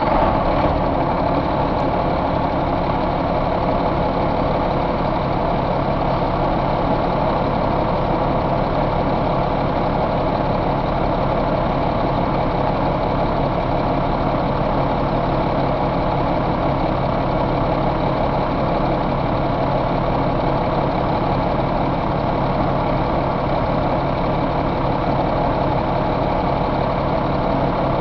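Paccar PX-8 8.3-litre inline-six diesel engine idling steadily.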